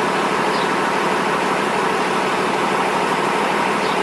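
A vehicle engine idling steadily, a constant even noise with no change in pitch.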